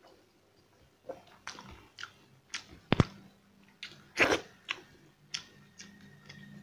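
A person chewing rice and curry eaten by hand, with a run of wet mouth smacks and clicks at irregular intervals. The sharpest click comes about three seconds in, and a longer, louder mouth sound comes just after four seconds as a handful goes into the mouth.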